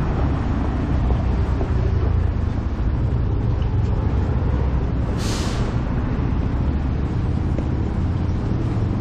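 Street traffic: a steady low rumble of road vehicles, with one short burst of hiss about five seconds in.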